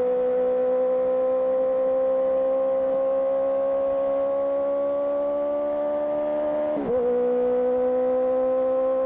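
Honda CBR650R inline-four running through an IXIL IXRACE aftermarket exhaust, pulling steadily with its note rising slowly under light throttle. About seven seconds in the note breaks briefly and settles a little lower: a quick gear change, then steady running again.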